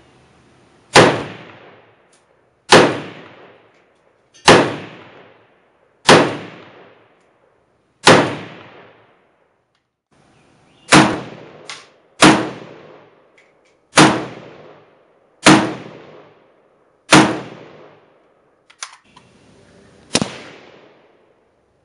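Norinco MAK-90 Sporter semi-automatic rifle in 7.62x39mm firing slow, single aimed shots. There are ten shots, one every one and a half to two seconds with a short pause midway, then a quieter eleventh near the end; each shot trails off in echo.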